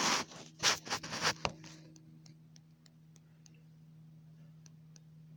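Handling noise as a phone camera is moved and set in place, rustling and knocking for about a second and a half. Then faint, irregular ticking over a steady low hum; the ticking's source is unknown.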